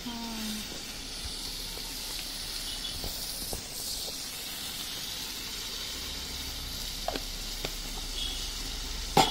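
Duck meat and onions frying in a wok over a wood fire: a steady sizzle, with a few faint ticks and one sharper knock near the end.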